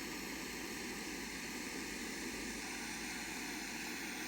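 Bernzomatic butane soldering torch running with a steady hiss, heating wire and solder.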